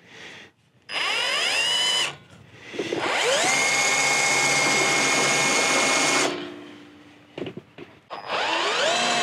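Cordless drill running in three bursts, each spinning up to a steady whine: a short one about a second in, a longer one of about three seconds, and a third starting near the end. The bit is starting a marking hole in the metal through the brush guard's mounting tab.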